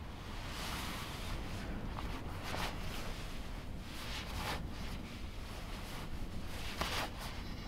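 Nylon shell of a down sleeping bag rustling in several scratchy bursts as the sleeper shifts inside it and pulls it around his head, over a low steady rumble.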